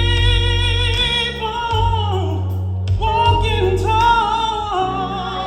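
Music: a voice singing long, held notes with vibrato that bend up and down, over a steady bass line.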